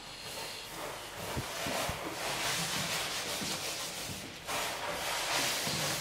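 Charcoal rubbing and scraping across large sheets of paper in long hand strokes, with a short break about four and a half seconds in.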